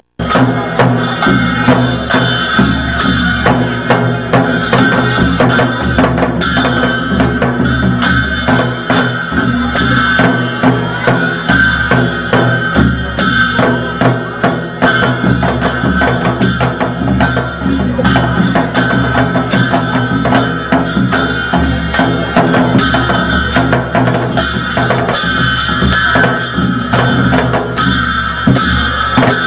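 Dhime baja ensemble: several Newar dhime drums (double-headed barrel drums) beaten in a fast, steady rhythm, with large hand cymbals clashing over them.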